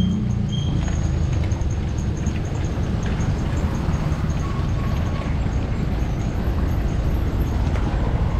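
Mountain bike rolling over a rough, cracked and patched concrete road: a steady rumble and rattle of tyres and bike, with wind noise on the action-camera microphone.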